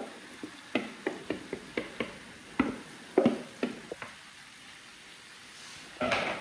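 Short irregular knocks and taps as diced prawns are shaken out of a plastic tub into a frying pan, for about four seconds. Near the end a wooden spoon scrapes briefly through the pan, the loudest sound here.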